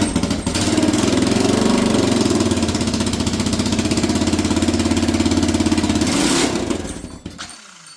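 Honda Rincon 650 ATV's single-cylinder four-stroke engine running loud through straight pipes on fuel poured into the carburettor bowl, just after its rebuild. It cuts off about six and a half seconds in.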